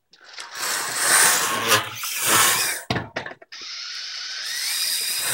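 Chomp the BattleBot's electric drive motors and gearing whirring under remote control, in several bursts as it moves and turns, then a steadier run with a whine rising in pitch near the end.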